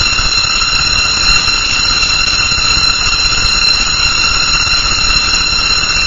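Horror sound effect: a loud, steady high-pitched screech held without change, over a rough low hiss.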